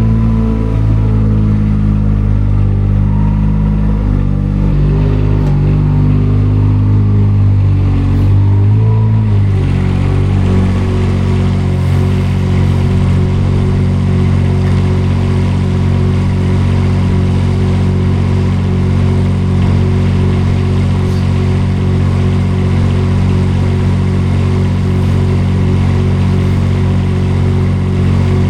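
Front loader's engine running loud, its pitch shifting up and down as it works for the first nine seconds or so, then settling to a steady run from about ten seconds in.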